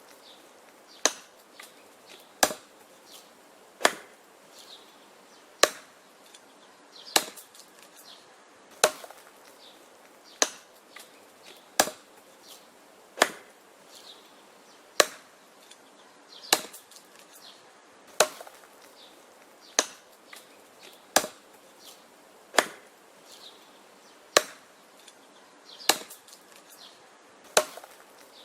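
An axe chopping wood: sharp, evenly paced strikes into the wood, about one every second and a half, with faint small knocks between some of them.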